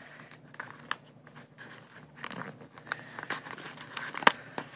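Folded paper of an origami pocket wallet crinkling and crackling as fingers handle it, with scattered sharp crackles, the loudest about four seconds in.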